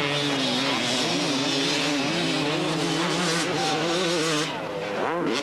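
Two-stroke 250cc motocross bike engines racing, their pitch rising and falling as the riders work the throttle, easing a little near the end before revving up again.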